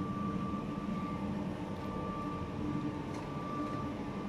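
Steady machine hum with a constant thin high whine over it, unchanging throughout.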